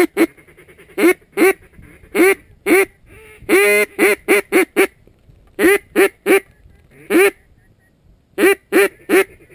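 Loud, nasal mallard quacks in short groups of two to four. About three and a half seconds in comes one long quack followed by four quick shorter ones, a hail-call cadence.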